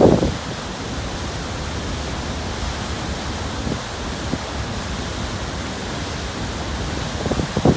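Steady rushing noise from the Blue Star Delos ferry's churning wake and the wind over the open stern deck, with low gusts buffeting the microphone right at the start and again near the end.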